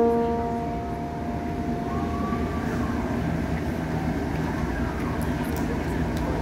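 A single keyboard note, struck just before, rings and fades away over the first two seconds or so. After it comes a steady low background rumble.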